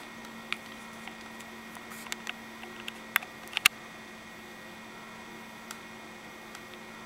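Steady electrical hum, with a scatter of small sharp clicks and ticks in the first half, the loudest a pair about three and a half seconds in.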